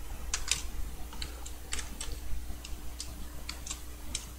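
Computer keyboard typing: about a dozen irregular, scattered keystrokes.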